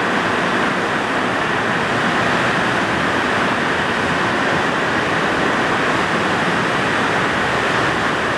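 Heavy rain pouring down: a loud, steady hiss that does not let up.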